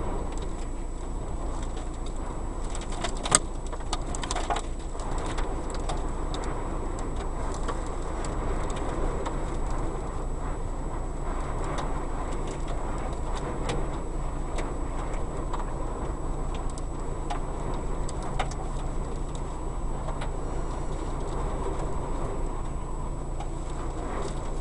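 Strong wind blowing and buffeting the microphone with a steady low rumble, with scattered ticks and rattles and one sharp click about three seconds in.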